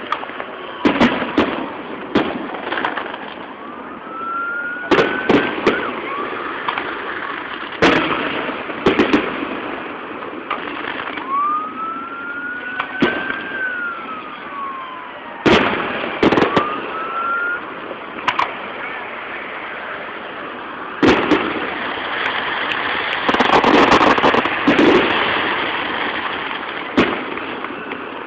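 Fireworks display: repeated sharp bangs of shells bursting at irregular intervals. Several whistles glide up and then down in pitch, and a denser, louder stretch of bursts comes near the end.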